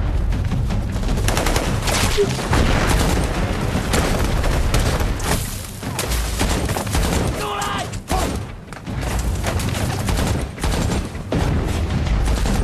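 Film battle soundtrack of continuous small-arms gunfire, a dense fusillade of rifle and machine-gun shots with deep booms underneath. A man shouts briefly a little past the middle.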